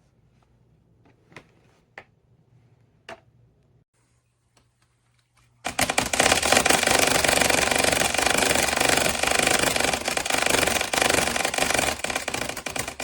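Box fan running loud with a fast mechanical rattling clatter, as something inside it is being hit while it turns. It starts suddenly about six seconds in, after a few faint clicks.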